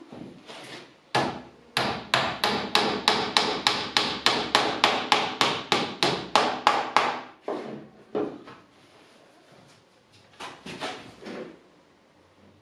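Hammer blows on the wooden parts of a track-saw crosscut jig. After a single blow comes a fast, even run of about four blows a second for some five seconds, then a few slower blows, then a short flurry near the end.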